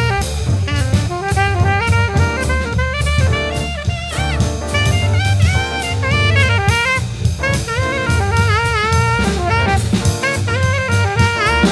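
Jazz quintet playing: a horn line of quick notes with scoops and bends over double bass and drum kit.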